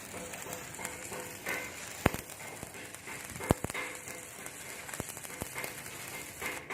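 Stick-welding arc crackling and sizzling steadily on steel, with a few sharp clicks about two, three and a half and five seconds in.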